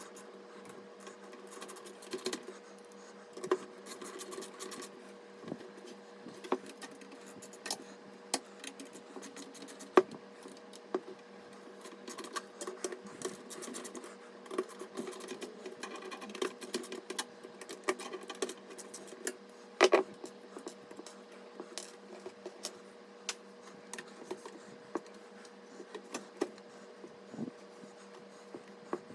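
Irregular small clicks, taps and rattles of hardware being handled during a PC build, with one sharp knock about ten seconds in and a double knock about twenty seconds in, over a steady faint hum.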